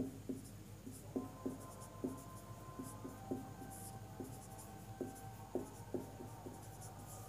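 Marker pen writing on a whiteboard: a string of short, irregular strokes and taps as words are written, fairly faint.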